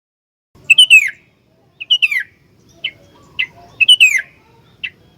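Sooty-headed bulbul singing: three loud, quick phrases that fall in pitch, with short single sharp notes between them, starting about half a second in after silence.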